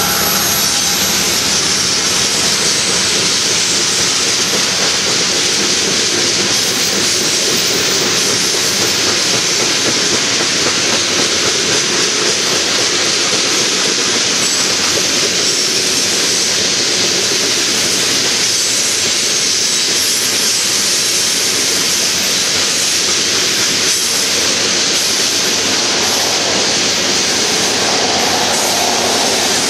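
Freight train of covered grain hopper cars rolling past close by: a steady, loud noise of steel wheels on the rails. It opens as the trailing diesel locomotives go by.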